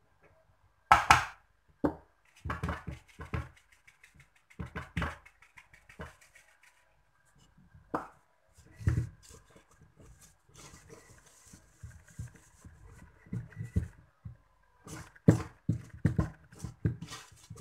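Flour being shaken and tapped through a plastic sieve, then a wire whisk stirring thickening biscuit dough in a stainless steel bowl, knocking and scraping against the metal in irregular strokes. The loudest knock comes about a second in, with a busier run of strokes near the end.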